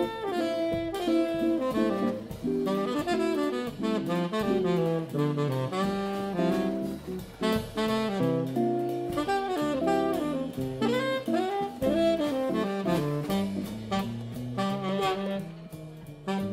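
Live small-group jazz: a saxophone playing a moving melodic line over drum kit and guitar accompaniment.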